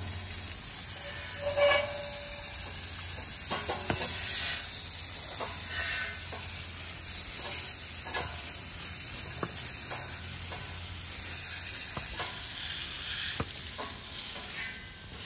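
Garden hose spray nozzle hissing steadily as its jet of water strikes a horse's legs and hooves and splashes on the wet ground, with a few light knocks now and then.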